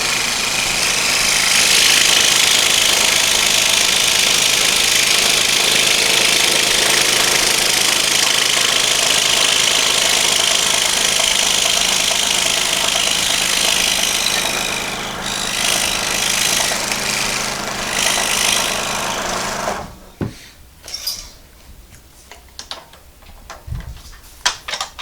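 DeWalt DW788 scroll saw running and cutting wood: a steady motor hum under the blade's rapid rasping hiss. The saw stops suddenly about twenty seconds in, followed by a few light clicks and knocks.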